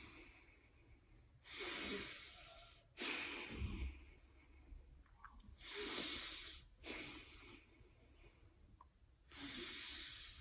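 A woman taking slow, full breaths in and out through the nose, each breath a rush of air lasting about a second with short pauses between. These are the deep, complete breaths recommended while chewing food.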